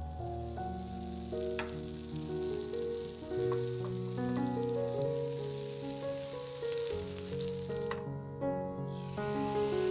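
Unsalted butter sizzling and bubbling as it melts in a hot nonstick frying pan, a steady high hiss that breaks off for about a second near the end, then returns. Background piano music plays underneath.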